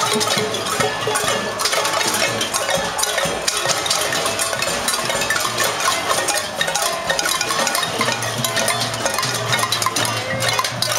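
A crowd banging on pots and pans: a dense, unbroken clatter of many metal strikes overlapping, with short ringing tones from the struck cookware.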